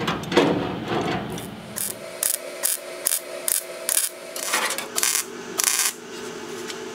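A run of about ten short, sharp scraping and clicking bursts from sheet-metal work on the car body, spread over a few seconds, with a faint steady hum beneath.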